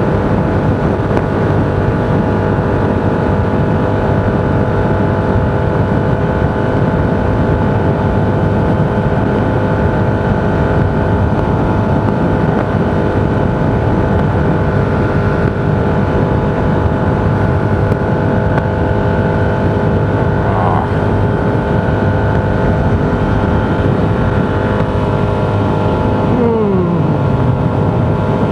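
Steady road and wind noise of a moving vehicle, with a tone that falls in pitch near the end.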